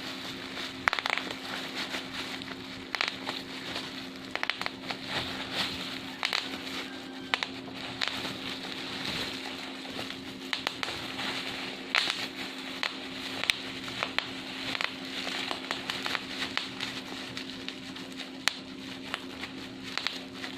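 Bubble wrap being handled: a continuous crackling with many sharp pops at irregular intervals, a few much louder than the rest, over a faint steady hum.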